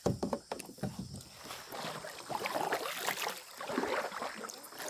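Small irregular splashes, drips and knocks of water against a fishing kayak.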